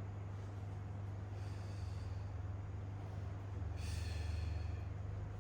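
A person breathing audibly under the effort of a core-strengthening hold, with two breaths: a fainter one about a second and a half in and a stronger one about four seconds in. A steady low hum runs underneath.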